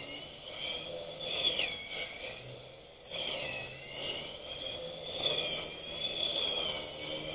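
Electric grass cutter's motor running with a high whine whose pitch rises and falls as it works through the grass. It drops off briefly about three seconds in, then picks straight back up.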